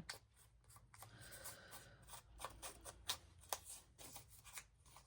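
Faint, irregular small clicks and rustles of paper craft materials being handled at a work table.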